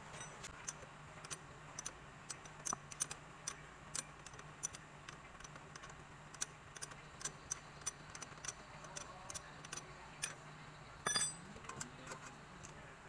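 Irregular light metallic clicks and ticks of a brake hose banjo bolt and its washers being turned by hand on a brake caliper, with a short louder clatter about eleven seconds in, over a faint steady low hum.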